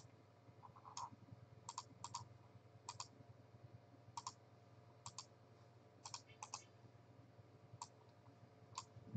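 Faint clicking at a computer: single clicks and quick pairs about once a second, over a low steady hum.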